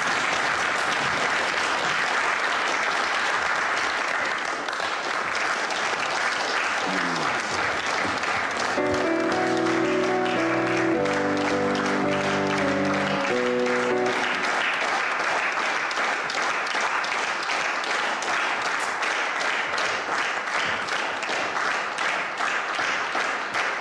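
Audience applauding. About nine seconds in, an upright piano plays a few held chords for about five seconds over the clapping.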